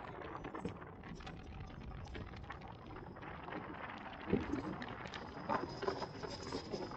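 Car on the move, heard from inside with the side window, steady road noise with scattered light knocks and rattles. A faint high, steady whine joins about halfway as the car enters a road tunnel.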